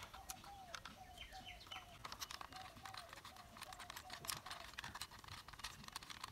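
Faint clicking and ticking of a small screwdriver turning screws into a plastic toy auto rickshaw's body. Behind it a bird chirps in quick runs of short falling notes, about three a second, which stop about two thirds of the way through.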